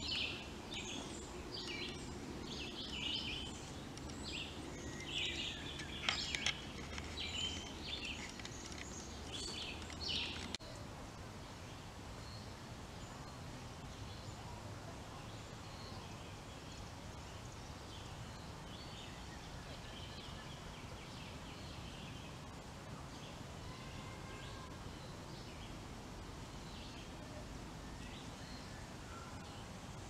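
Small birds chirping in woodland over a steady low background noise. The calls come thick and irregular for the first ten seconds or so, then the sound drops abruptly to a quieter background with only occasional faint chirps.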